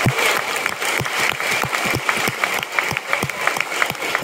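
Audience applauding, with single hand claps standing out from the clapping crowd.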